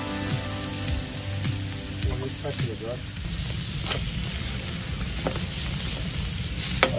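Diced liver and heart sizzling steadily on a hot steel plate over a braai fire, with a spatula clicking and scraping on the plate as the pieces are stirred and turned.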